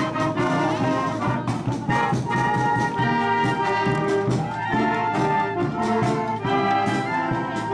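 A high-school wind band playing a brisk tune, with trumpets and trombones carrying the melody over a steady percussion beat.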